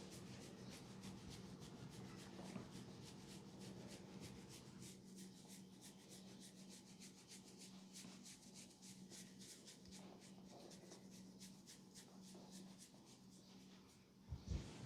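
Faint, quick rubbing strokes of hands on hair and skin during a massage, many strokes a second, over a steady low hum. A soft thump near the end.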